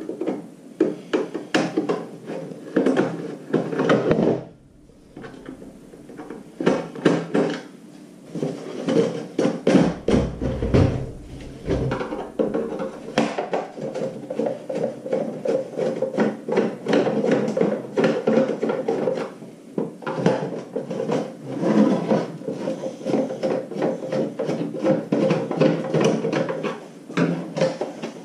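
Plastic housing of a Mr. Heater Buddy propane heater being pried and pulled apart by hand and with a screwdriver on a wooden table: a busy run of clicks, knocks and scrapes.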